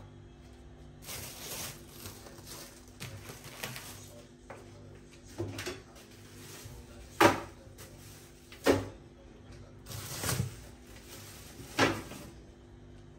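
Groceries being packed into a fridge: rustling of packets, then five sharp knocks about a second and a half apart as items and fittings are handled.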